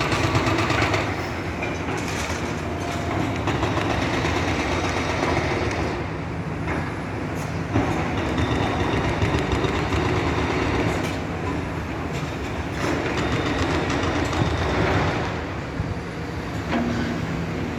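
Diesel engine of a demolition machine running under load, a steady heavy mechanical noise with a sharp knock about eight seconds in.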